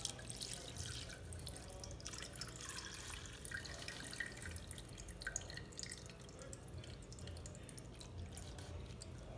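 Clairin steeped with cinnamon, nutmeg and lemon zest poured from a glass bowl into a cloth kitchen towel to strain it, trickling and dripping faintly in small irregular splashes.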